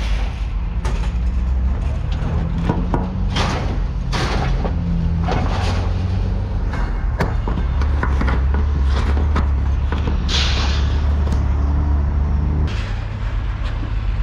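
A truck driving with its engine's low drone under repeated clunks and rattles from the truck and its load of scrap metal. The drone drops about two seconds before the end.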